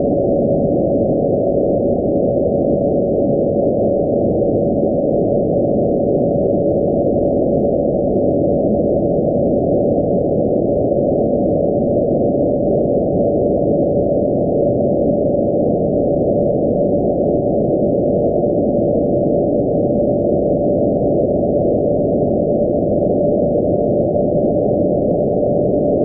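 Radio carrier of NASA's IMAGE satellite's TT&C (telemetry, tracking and command) transmitter near 2272.5 MHz, heard through the receiver as one steady whistle-like tone over receiver hiss. Its pitch creeps slowly upward, following the signal's Doppler drift.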